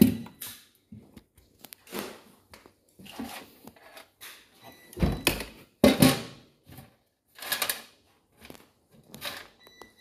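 Irregular knocks, clatters and scrapes of plastic and metal dishwasher panels being handled and fitted together, the loudest two knocks about five and six seconds in.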